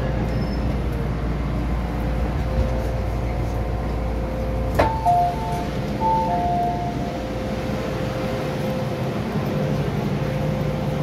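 Steady hum and low rumble of an MTR station platform beside a standing train. About five seconds in, a click is followed by a two-note high-low chime sounded twice: the warning for the train's doors closing.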